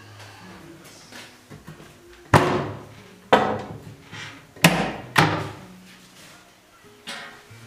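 Wooden kitchen wall-cupboard doors banging open and shut. Four loud knocks come in quick succession from about two seconds in, each dying away briefly, and a fainter knock follows near the end.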